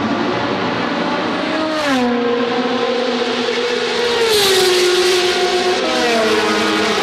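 Race car engines running at high revs as the cars pass one after another, the pitch dropping sharply with each pass, three times.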